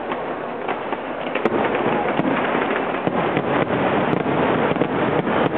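Aerial fireworks bursting overhead: a dense run of bangs and crackling that gets louder about a second and a half in.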